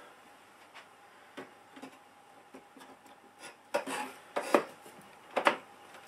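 Mac Pro memory riser card being slid back into its metal memory cage: light scrapes and clicks, then a few louder short scraping strokes about four and five seconds in as it goes home.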